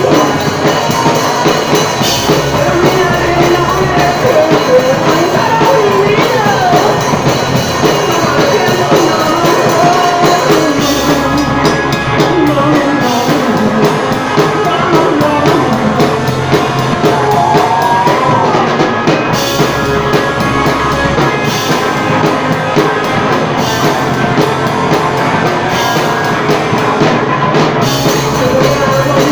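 A live band playing a song: a lead vocal sung over guitar and drums.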